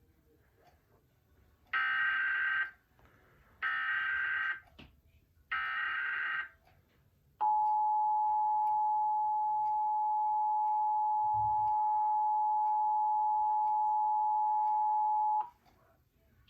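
Emergency Alert System tones for a required monthly test: three short bursts of SAME header data, each a buzzy digital warble lasting about a second, then the EAS two-tone attention signal (853 and 960 Hz together) held steady for about eight seconds before cutting off.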